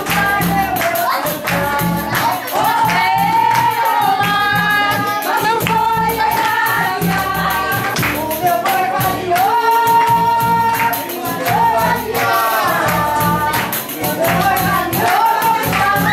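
Boi de mamão folk song: voices singing a melody over a steady beat on a large bass drum, with tambourine and guitar accompaniment.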